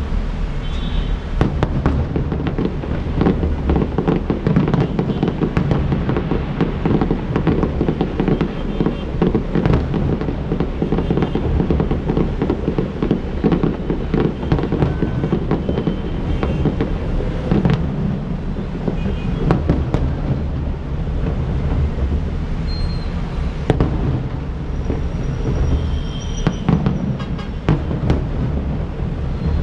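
Aerial fireworks going off in a dense, continuous barrage of bangs and crackles, many reports a second with no real pause.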